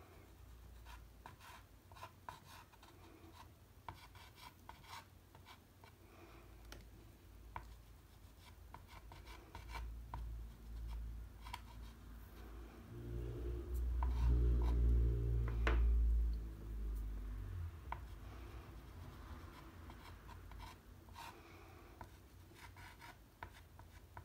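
Pastel stick scratching across textured watercolour paper in short, repeated strokes. A low rumble swells for a few seconds midway and is louder than the strokes.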